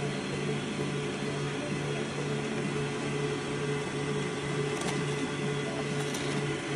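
Electric stand mixer running, its whisk beating egg whites into meringue: a steady motor hum that pulses evenly about twice a second.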